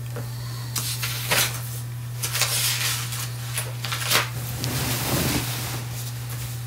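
Sheet-metal oven floor panel handled and pressed into place by hand: scattered scrapes, rubs and light knocks, with a steady low hum underneath.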